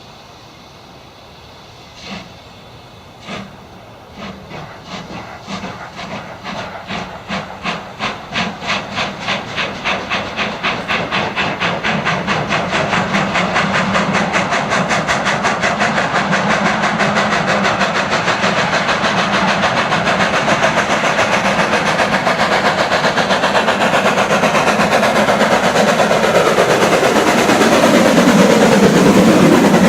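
Steam locomotive pulling away: two slow single chuffs, then exhaust beats that quicken steadily until they run together as the train gathers speed, growing louder as it comes near.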